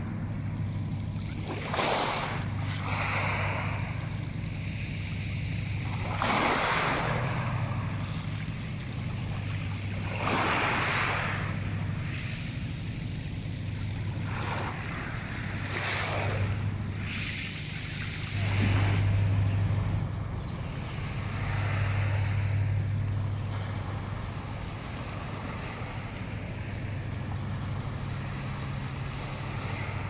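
Small waves washing in and out on a pebble shore, the surf swelling every few seconds. A steady low hum runs underneath.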